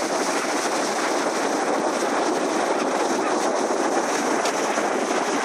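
Ocean surf breaking and washing up a sandy beach: a steady, unbroken rushing hiss of waves and foam.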